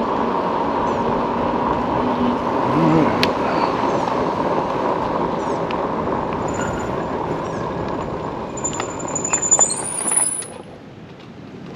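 Electric mobility scooter rolling slowly along a paved road: a steady motor whine with tyre and road noise. It dies down about ten and a half seconds in as the scooter comes to a stop.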